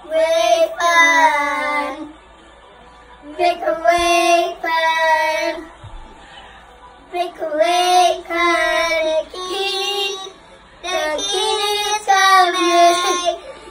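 A young boy singing a song unaccompanied, in four phrases separated by short pauses, holding long notes.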